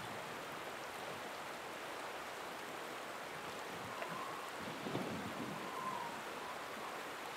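Steady rushing of a fast-flowing river around a wading angler's legs, with a few faint knocks about four and five seconds in.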